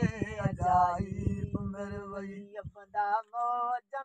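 Men singing a Sindhi molood, a devotional chant: a male voice draws out long, wavering notes between short breaths while a second voice holds a low steady note beneath. A low rhythmic thumping runs under the singing and stops about two-thirds of the way through.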